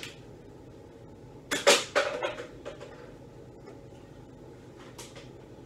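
Rubbish thrown into a kitchen trash can: a short burst of rustling and knocks about one and a half seconds in, lasting under a second, and a brief swish near the end.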